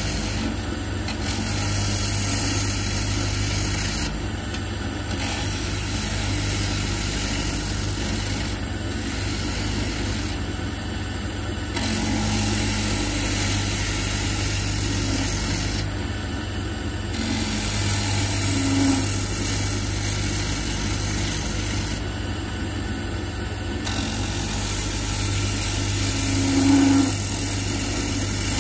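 Draper WTL330A mini wood lathe running steadily while a gouge cuts a spinning maple blank on a faceplate. The hiss of the cut comes and goes as the tool is worked, with two short louder moments, one a little past the middle and one near the end.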